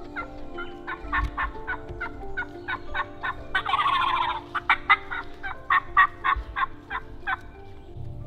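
A wild turkey gobbler gobbles once, about four seconds in. Around it runs a fast series of short, sharp turkey calls, hen-style yelps and cutts, several a second.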